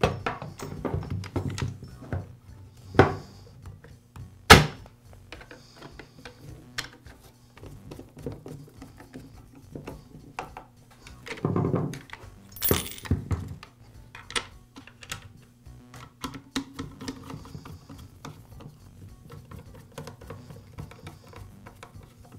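Hard plastic knocks and clicks as a chainsaw's plastic top handle is fitted onto the body and screwed down. The sharpest knocks come about 3 and 4.5 seconds in and again around 12 seconds, with lighter ticks and rattles between.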